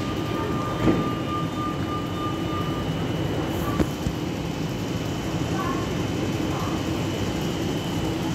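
Hyundai Rotem R-Train electric multiple unit pulling away from a station platform: a steady rumble as the train starts off and gathers speed, with a steady high tone over it. A higher tone sounds for the first few seconds and then stops, and there are a couple of short clicks.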